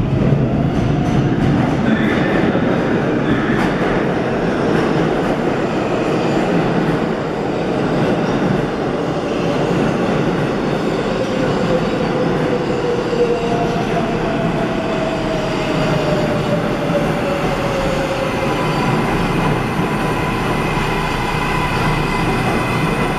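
New York City Subway 7 train pulling away over the switches of an elevated interlocking, running loud and steady. Its wheels click over the rail joints and switch frogs, most sharply in the first few seconds, with a faint wheel squeal in the middle.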